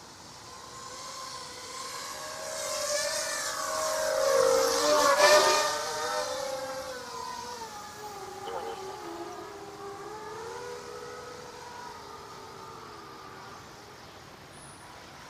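ZMR250 racing quadcopter's brushless motors and propellers whining in flight, the pitch rising and falling with throttle. It grows to its loudest about five seconds in, with the pitch dropping as it passes, then goes on as a lower, wavering whine that slowly fades.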